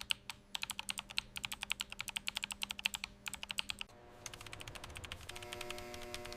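Rapid typing on a computer keyboard, about ten key clicks a second, for roughly four seconds. Then a steady hum of several held tones takes over, with only faint clicks.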